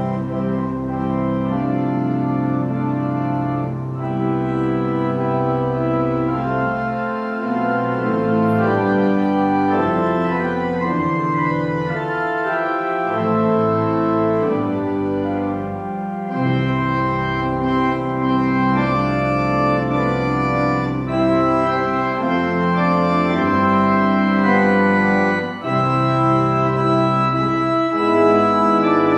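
Pipe organ playing slow, sustained chords over long-held low pedal notes.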